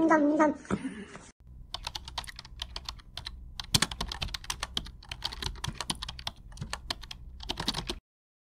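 A cat's drawn-out meow ends about half a second in. Then comes a long run of irregular clicking and clattering from a row of dominoes, knocked over by a cat's paw, toppling one into the next; it stops abruptly near the end.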